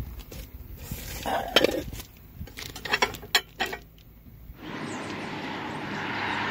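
Stoneware bowls and plates clinking against each other as they are handled in their paper packing: a few sharp clinks with a short ring, clustered about a second and a half in and around three seconds in. Near the end this gives way to a steady outdoor background noise.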